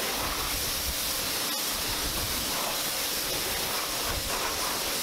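Pressure washer jet spraying water over a car engine bay: a steady, even hiss of spray.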